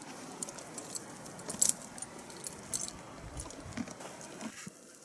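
Metal tack on a saddled mule jingling in light, irregular clinks as the mule shifts and steps in snow, with a few soft steps near the middle.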